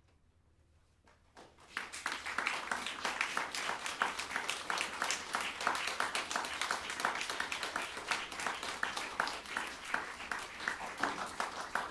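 Near silence, then about a second and a half in a small audience starts applauding, and dense hand clapping carries on.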